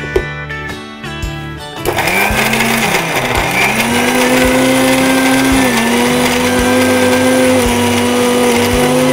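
Electric mixer grinder with a steel jar grinding small onions and coconut pieces: switched on about two seconds in with a brief pulse, then running steadily with a high motor whine and the churn of the contents.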